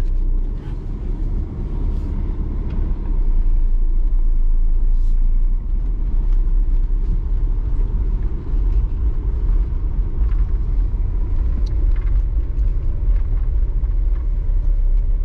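A car driving over a rough concrete-slab track, heard from inside the cabin: a steady low rumble of tyres and engine with faint small knocks and rattles.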